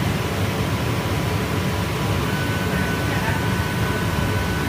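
Steady low machine rumble from a glass cutting line, with a faint thin whine that comes in about halfway through.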